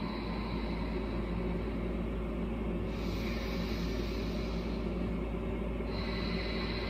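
A steady low humming drone with a rumble beneath it. About three seconds in comes one slow breath through the nose, a soft hiss lasting a second or two, as part of deep belly breathing.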